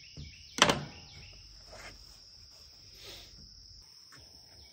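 Insects chirping steadily in a high, even pulse. A sharp knock comes about half a second in, with a few softer clunks later.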